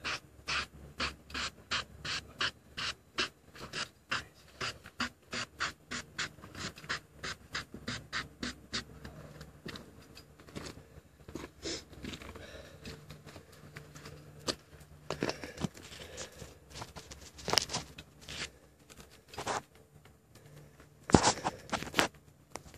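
Gloved hand brushing across the top of a freshly milled timber beam in quick, even strokes, about three a second, for roughly the first nine seconds. Then come scattered scrapes, and a loud knock near the end as the camera is handled.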